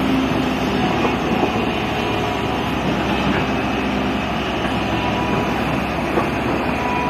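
Steady drone of heavy diesel machinery at work: a tracked excavator running while it moves its arm and bucket.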